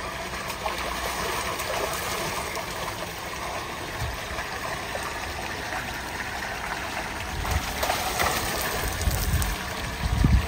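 Tubewell water gushing from a pipe into a concrete tank, a steady rush of pouring and churning water. A few louder low thumps come near the end.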